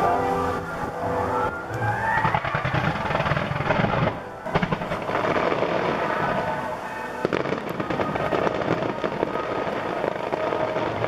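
Fireworks finale: a rapid barrage of shell bursts and crackling, with music playing alongside.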